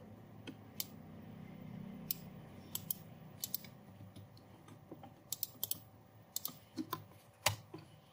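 Faint, irregular clicks of a computer keyboard and mouse as commands are typed at a terminal, some keystrokes coming in quick little runs.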